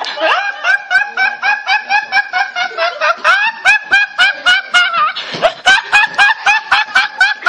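A young man laughing uncontrollably in rapid high-pitched bursts, about four a second, each rising in pitch, with one sharp gasping breath in about five seconds in.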